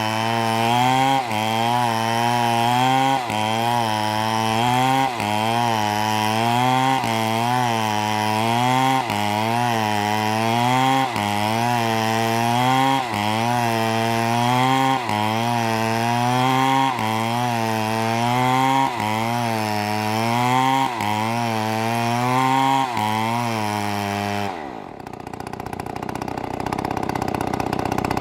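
Two-stroke chainsaw running at high revs through wood, its pitch dipping briefly about once a second as the chain bites. Near the end the revs drop off quickly to a low idle.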